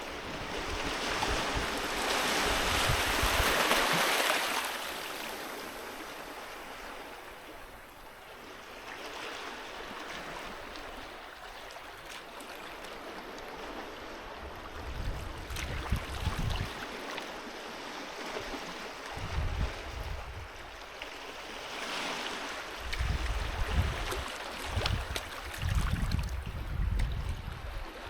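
Sea waves washing onto a beach: one large wave surges in and breaks about a second in, then fades to a softer steady wash. In the second half, short low rumbles come in bursts over the continuing surf.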